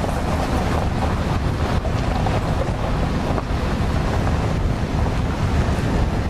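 Wind buffeting the microphone over the steady low rumble of a vehicle driving slowly along a dirt lane.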